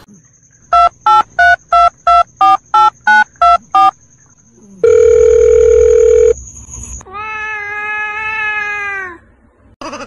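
Ten short telephone keypad beeps in quick succession, about three a second, like a number being dialled. A long steady phone tone follows, then a drawn-out, voice-like call lasting about two seconds.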